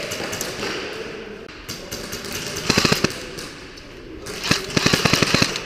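Two short full-auto bursts from a WE MP7 gas blowback airsoft submachine gun, each a rapid clatter of shots, the second longer and coming just under two seconds after the first.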